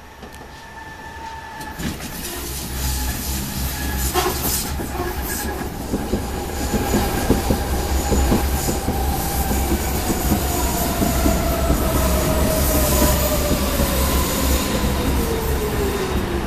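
Berlin U-Bahn Type G train running into the station and braking: wheels clattering over the rails, getting louder over the first few seconds. A whine falls steadily in pitch as the train slows.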